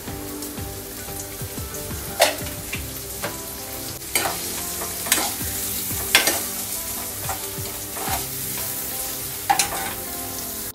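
Chopped onions sizzling in hot oil in a nonstick kadai while a steel ladle stirs them, with repeated sharp clinks of the ladle against the pan.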